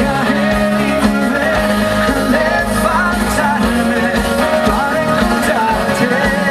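Live band playing a rock-style song, with a wavering melodic lead line over a steady low accompaniment.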